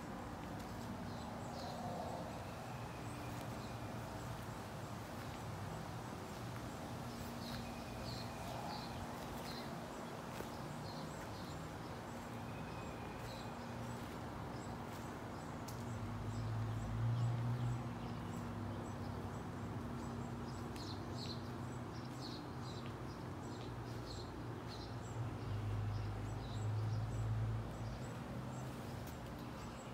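Backyard ambience of small birds chirping again and again over a steady low hum, with two short low rumbles, one near the middle and one near the end.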